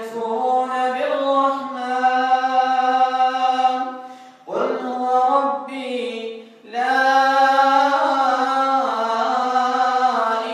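An imam recites the Quran aloud in prayer: a single man's voice chanting long, melodious, held phrases. The chant breaks for short breaths twice, about four and a half and six and a half seconds in.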